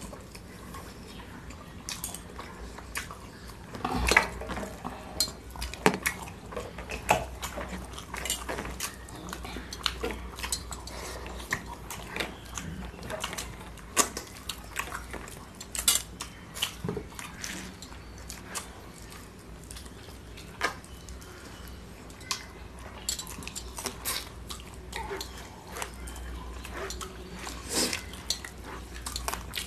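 Eating by hand from plates: irregular clicks and clinks of fingers and food against the plates as rice and curry are mixed and scooped, with chewing. A few sharper clinks stand out, about 4, 14, 16, 21 and 28 seconds in.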